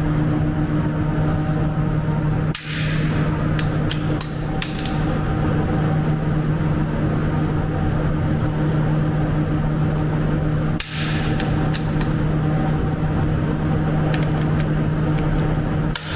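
Bolt of a Victrix Gladio V .308 bolt-action rifle being worked and the rifle dry-fired: sharp metallic clicks in two clusters about eight seconds apart, and a few more near the end. Under them runs a steady low hum.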